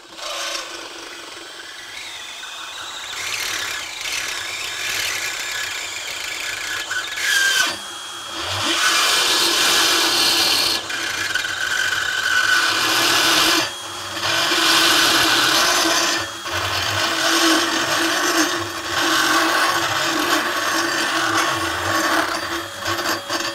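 Cordless drill turning a 1/2 to 3/4 inch fast car reamer through a pre-drilled, lubricated hole in a metal plate: a steady motor whine under a grinding cutting noise as the reamer enlarges the hole. It gets louder about eight seconds in and cuts out briefly a few times.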